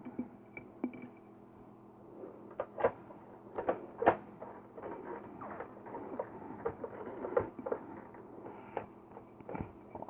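Irregular small clicks and knocks of parts and casing being handled as an electric room heater is reassembled, over a faint low hum.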